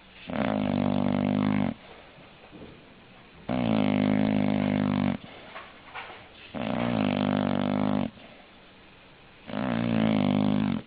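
English bulldog snoring: four long, rasping pitched snores, each about a second and a half, coming about every three seconds in a steady breathing rhythm, with quiet between them.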